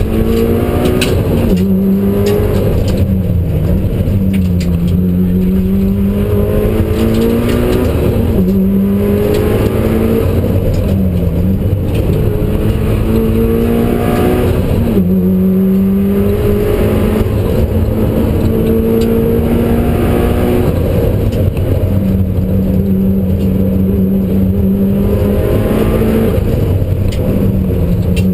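Mitsubishi Lancer Evolution IX's turbocharged four-cylinder engine heard from inside the cabin at rally pace: its pitch climbs, drops back at each gear change, and dips briefly several times as the car lifts off for bends before pulling again.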